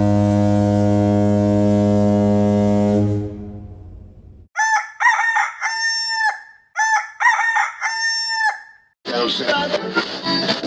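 A low, steady horn-like alarm tone stops about three seconds in. Then a rooster crows twice, each crow a few short notes followed by a long held one, used as an alarm sound. Near the end a busier, music-like alarm sound begins.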